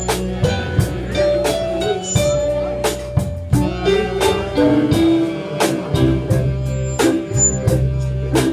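Live band playing, with guitar, keyboard and drum kit over a steady bass line and regular drum beats.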